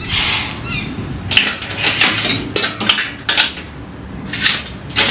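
Metal clinking and rattling from a charcoal water smoker's grate and body as ribs are set on the bottom rack, a string of irregular sharp clinks.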